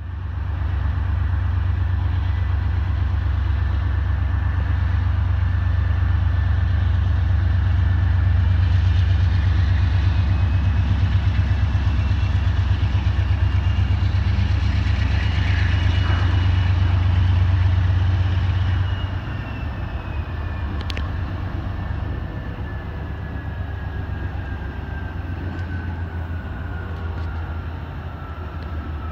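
Low rumble of a Norfolk Southern GE Dash 9 diesel locomotive approaching along the track, with a faint high whine above it; the rumble eases about two-thirds of the way through, and the whine slowly falls in pitch near the end.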